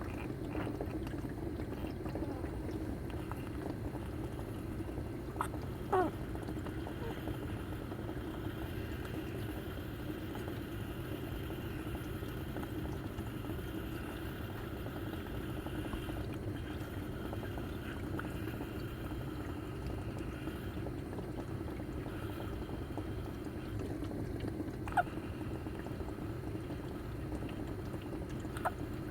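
Two short, sharp hiccups, one about six seconds in and one near the end, over a steady low background hum.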